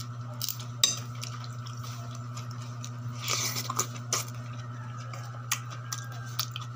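Spoon clinking and scraping against a plate of food while eating, in scattered short clicks with one longer scrape about three seconds in. A steady low hum runs underneath.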